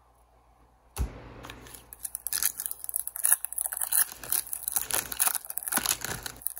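A thump, then a foil pack of hockey trading cards being torn open, its wrapper crinkling densely and irregularly.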